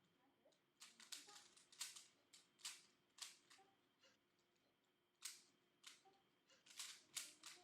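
Rubik's Cube being twisted by hand: faint, irregular clicks and snaps of the plastic layers turning, with a short pause about halfway through.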